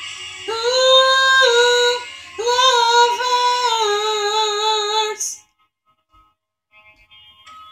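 A young woman singing solo, holding long notes with vibrato over two phrases. The singing stops about five seconds in.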